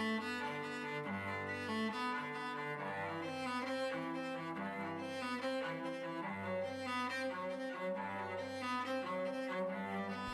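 Background music led by bowed strings, with sustained cello-like notes over a low bass line.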